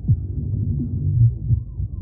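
Deep synthesized bass notes from a laser harp, repeated several times, each one sliding down in pitch over a steady low throb.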